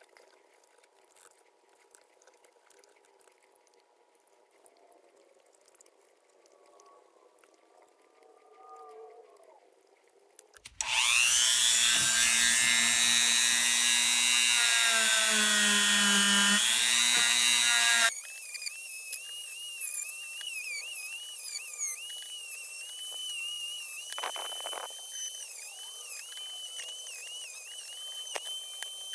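A power tool runs loudly for about seven seconds, starting abruptly about ten seconds in and cutting off just as abruptly. After it comes a wavering, whistle-like high tone.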